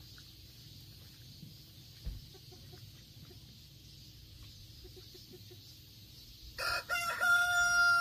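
A rooster crowing once near the end: a few short choppy notes, then a long held note. Before it there is only faint background with one dull thump about two seconds in.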